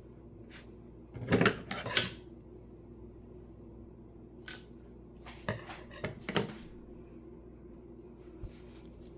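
Kitchen clatter: dishes and utensils knocked and set down with sharp clacks, in two bunches a few seconds apart, over a faint steady hum.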